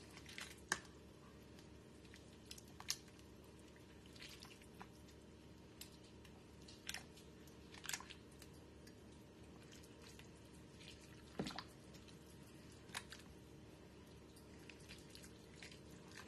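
Faint sounds of a spoon stirring thick, chunky soup in a ceramic slow-cooker crock: soft wet squelching with light clicks and knocks of the spoon against the crock every second or two.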